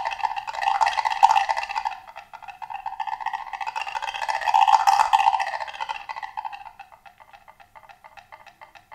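Wooden woodblock played with a pair of mallets in fast rolls that swell and fade twice, then thin out into sparse, slowing taps near the end.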